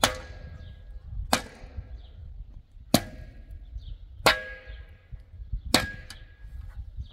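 Metal hoe blade striking stony soil five times, about once every second and a half, each blow a sharp clang with a brief metallic ring.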